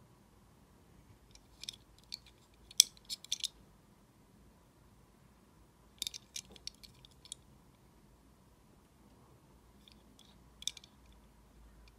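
Light clicks and taps of a Hot Wheels die-cast toy car being turned over in the hand. They come in three short clusters: about two to three seconds in, around six seconds, and near ten seconds.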